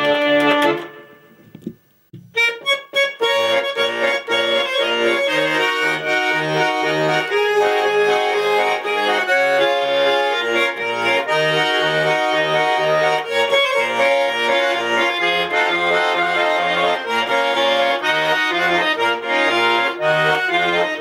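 Garmon (Russian button accordion) playing: about a second in, the previous tune ends and dies away to near silence. About two seconds in, an instrumental introduction starts, a melody over a steady alternating bass-and-chord accompaniment.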